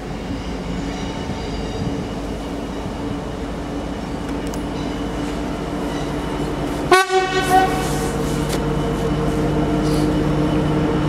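Class 66 diesel locomotive 66793, its EMD two-stroke engine droning steadily and growing louder as it approaches. Partway through it sounds its German-type horn in one short blast with a quick second note.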